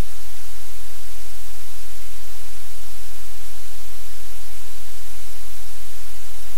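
Loud, steady hiss of static that does not change.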